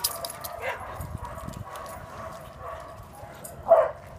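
Puppies at play: one puppy gives a single short, loud yip near the end, with a fainter yip about a second in.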